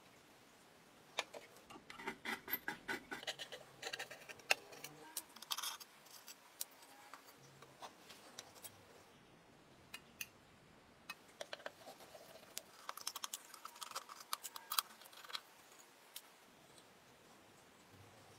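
Clicks, taps and scrapes of metal parts being handled and pried apart while an old electric clothes iron is dismantled by hand. They come in clusters, one from about one to six seconds in and another from about eleven to sixteen seconds in.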